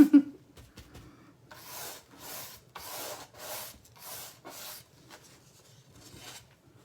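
A short thump, then a stiff, paint-crusted dry brush scratching across a wooden board in about six rhythmic strokes, fading to lighter scrubbing near the end: dry-brushing a light paint coat over stained wood.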